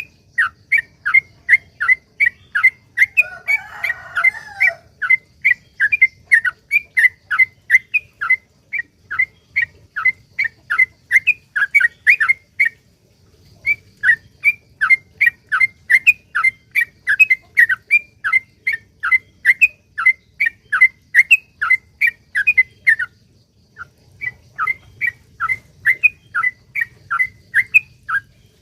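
Yellow-vented bulbul (trucukan) calling in a long, fast run of short down-slurred notes, about three to four a second, broken by two short pauses. A rougher, harsher call sounds a few seconds in.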